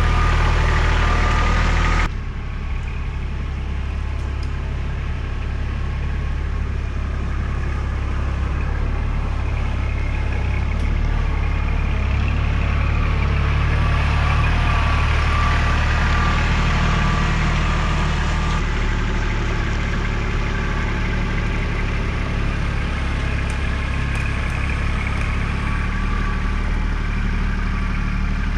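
Tractor diesel engine running at a steady speed, with an abrupt change in tone about two seconds in.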